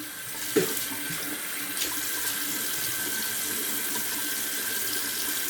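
Water running steadily from a sink tap, with one brief louder sound about half a second in.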